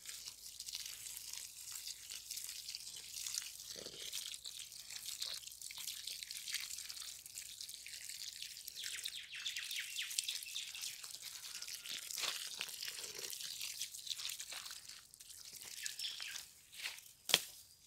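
Water and soil slurry seeping down among the stones of a freshly filled pit, a steady fine crackling and dripping as it soaks into the dry earth, with a sharp click near the end.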